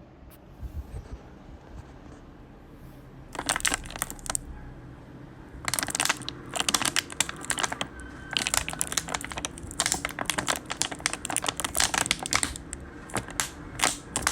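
Irregular bursts of close crackling and crinkling, starting about three seconds in and coming thicker and more often toward the end.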